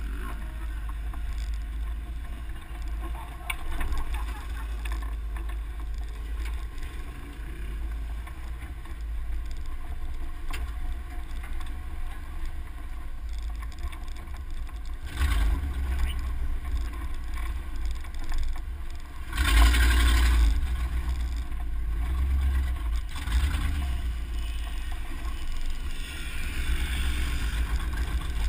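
Full-size truck driving on a dirt trail: a steady low engine and road rumble with wind buffeting the microphone, and two louder surges of rushing noise about fifteen and twenty seconds in.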